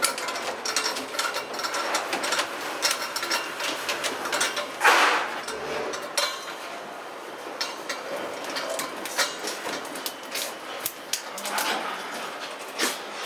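Clicking and clanking of metal fittings as a gas cylinder's pressure regulator and hose connection are handled and adjusted, with one short, louder rush of noise about five seconds in.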